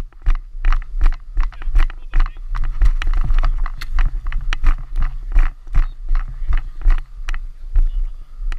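Running footsteps on grass, about three or four strides a second, heard through a helmet-mounted camera, over a steady low rumble.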